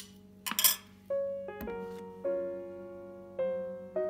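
Soft piano background music, its chords entering about a second in and changing roughly once a second. Before the music enters there is a click and then a brief, louder clink or scrape of a metal spoon against a ceramic bowl.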